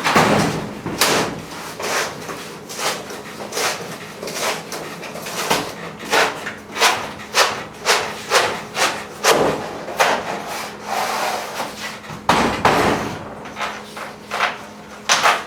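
Repeated irregular knocks and thumps, about two a second, with some rubbing and scraping, as a vinyl-backed foam insulation panel is pounded and pushed into a garage door section.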